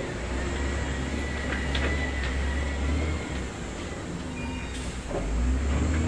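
Heavy construction machine's diesel engine running with a deep, steady rumble. It eases off about three seconds in and builds up again near the end.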